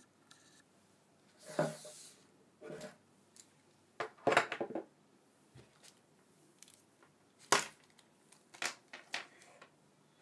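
Gloved hands handling a phone lens kit's small accessories on a tabletop: scattered rustles, taps and clicks, with the busiest cluster about four seconds in and a sharp click about seven and a half seconds in.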